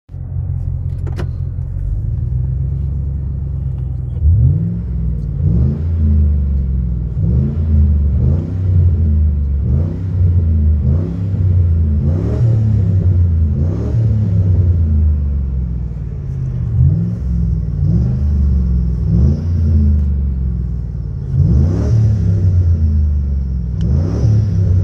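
Old V8 engine idling steadily, then revved hard from about four seconds in with quick repeated blips of the throttle, about one a second, each rev rising and dropping back toward idle. Heard from inside the car's cabin.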